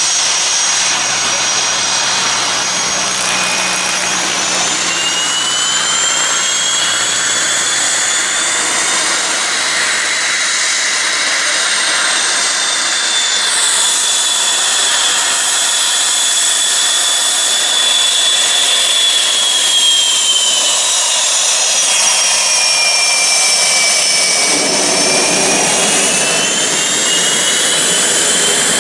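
McDonnell Douglas CF-18 Hornet's twin General Electric F404 turbofans running as the jet taxis: a loud, steady rush with a high-pitched whine that slowly rises and falls in pitch.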